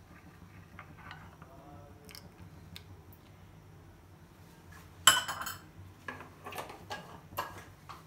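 Metal spoon ticking lightly against a small glass bowl, then a sharp clatter about five seconds in as the spoon is put down, followed by several lighter clinks and knocks of kitchenware.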